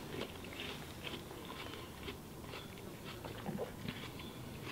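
Quiet chewing of a mouthful of watermelon, with scattered small wet crunches and clicks.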